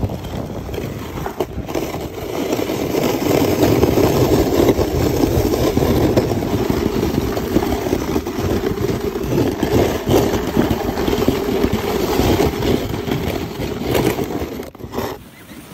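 A sled sliding fast down a packed snow run, its runners scraping and rumbling over the snow, with wind on the microphone. The rumble strengthens about two seconds in and dies away near the end as the ride slows to a stop.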